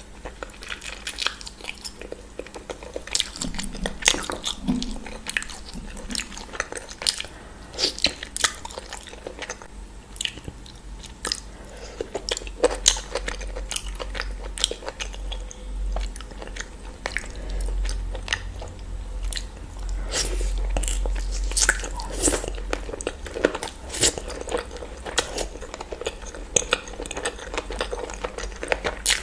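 A person eating close to the microphone: irregular bites and chewing with crunchy crackles and wet mouth clicks.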